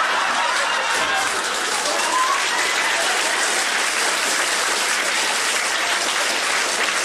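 Live audience applauding steadily in response to a joke's punchline.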